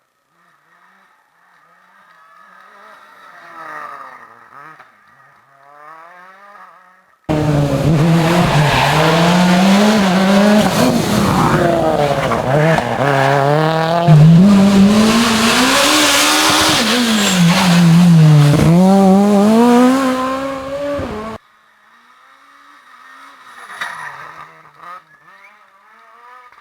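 Rally cars' engines at full race pace: first a car revving hard through its gears at a distance, then, after an abrupt cut, a car close by, loud, its engine pitch climbing and dropping again and again with gear changes and lifts for corners. It cuts off suddenly about three quarters of the way in, and a more distant car is heard passing near the end.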